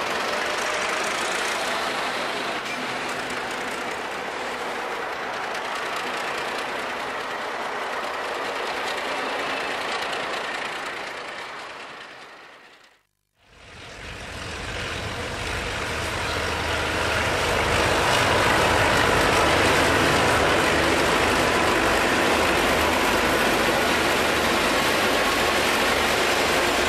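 Alco 251 six-cylinder diesel of a 48 class locomotive running, heard close to its hood and radiator grille. The sound fades out about halfway through. A lash-up of several 48 class Alco diesel locomotives hauling a freight under load then grows louder as it approaches and passes.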